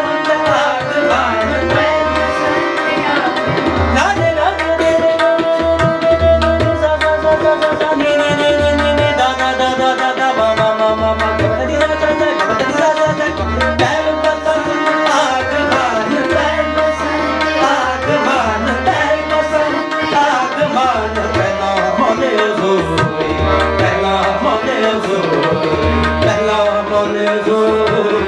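Shabad kirtan: two harmoniums holding chords under a singing voice that bends and ornaments its melody, accompanied by tabla, whose bass drum (bayan) gives deep booming strokes in a recurring pattern.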